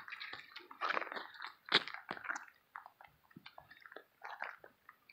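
Irregular crunching footsteps on gravel, the loudest about two seconds in.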